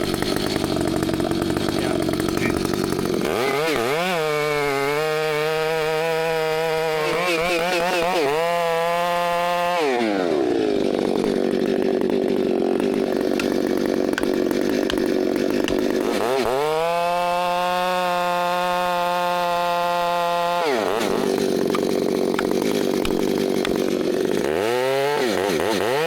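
Chainsaw cutting through a tree trunk: the saw revs up to full throttle and holds there for about six seconds, drops back to idle, then runs at full throttle again for about four seconds, with a brief rev near the end. This is the final cut that frees the last trunk piece for the crane to lift.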